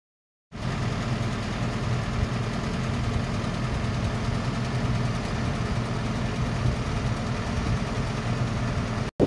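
A vehicle engine running steadily, a low even hum under a broad hiss. It starts abruptly about half a second in and cuts off sharply just before the end.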